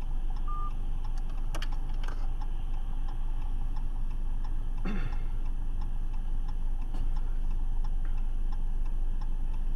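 A car's indicator relay ticking fast and evenly inside the cabin of a car pulled over on the shoulder, over a steady low rumble of the idling engine and passing traffic. There is a brief click about a second and a half in and a short louder swell about five seconds in.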